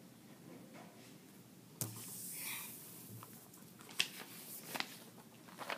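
Quiet handling noises of paper sheets and a handheld camera on a wooden desk: a knock about two seconds in, a brief rustle of paper, then a few light taps and clicks near the end.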